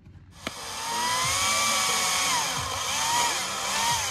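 Makita chainsaw starting with a click about half a second in, then running and cutting through a log, its motor whine rising and then dipping in pitch several times as the chain bites into the wood.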